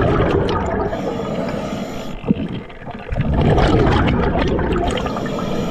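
Underwater scuba regulator breathing: two long exhalations of rumbling, gurgling bubbles, the second starting about three seconds in, with a short click in the quieter gap between them.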